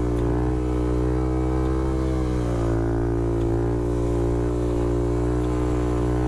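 Honda Grom's 125 cc single-cylinder four-stroke engine running under way at fairly steady revs, its pitch dipping and rising a little.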